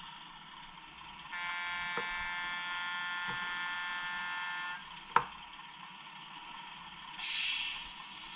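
Beier SFR-1 sound module playing a steady, buzzer-like electronic tone through a small loudspeaker for about three and a half seconds. A sharp click comes about five seconds in, and a short hiss near the end.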